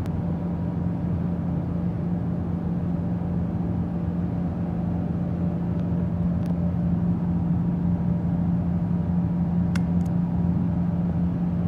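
Steady low hum of running shop machinery, with a few light metal ticks near the end as a scriber is worked against a steel mini spool.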